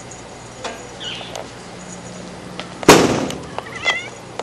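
A single sudden loud bump about three seconds in, dying away over about half a second, with a few faint bird-like chirps before and after it.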